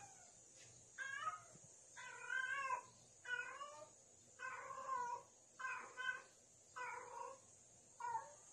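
Female domestic cat in heat calling: about seven meows roughly a second apart, each wavering in pitch. This is the repeated mating call of a queen in heat.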